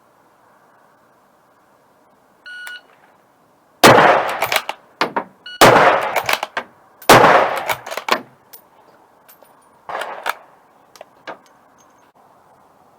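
A short electronic beep, then three loud rifle shots about a second and a half apart, each ringing off, with small metallic clicks between them as the action is worked. A quieter fourth shot comes a few seconds later.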